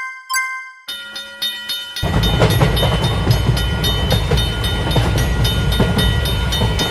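Railroad crossing warning bell ringing in a rapid, even rhythm. About two seconds in, the loud rumble of a passing train joins it and continues until near the end.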